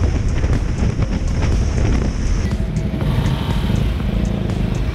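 Motorcycle riding along a road, engine and wind noise on a camera mounted on the bike. About halfway through the sound cuts abruptly to a steadier low hum.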